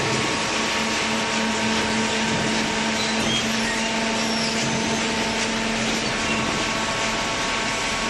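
Horizontal cardboard baler running: a steady motor hum with a constant low tone over even mechanical noise.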